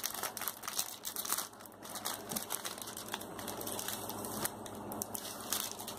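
Packaging crinkling and crackling as it is handled and opened by hand, with irregular small clicks throughout.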